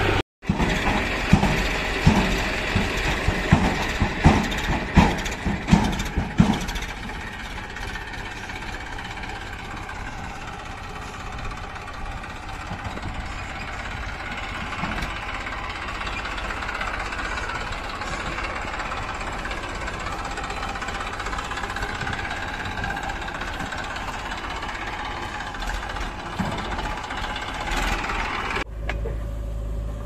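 Massey Ferguson diesel tractor engine running, with a string of loud clanks and knocks over the first six seconds or so, then a steady engine drone.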